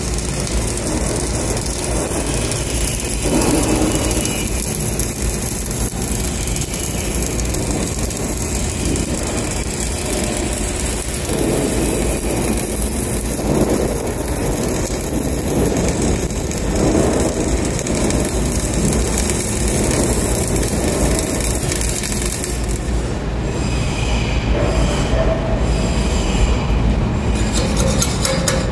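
Flux-cored arc welding running steadily as a loud, dense noise, with the welder set at about 24 volts and 200 amps. The arc stops about 23 seconds in.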